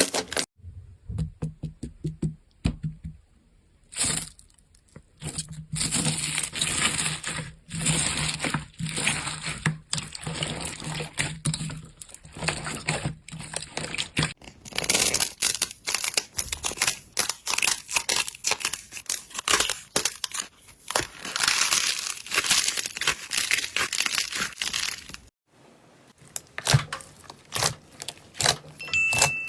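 Slime being handled, making dense, irregular crackling and crinkling sounds. The sound changes abruptly a few times, as one slime clip cuts to the next.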